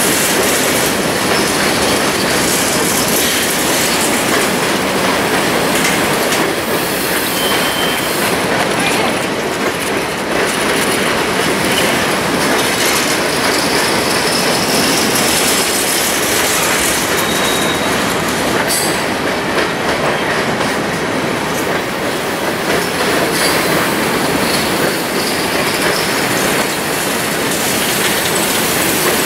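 Freight cars (double-stacked containers and autoracks) rolling past on the rails with a loud, steady rumble of wheels on track. A couple of brief, high wheel squeals cut through the noise.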